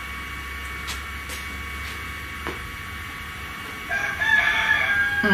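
Steady mains hum with a few light computer-mouse clicks, then about four seconds in a loud, high-pitched call with several overtones sets in and runs on.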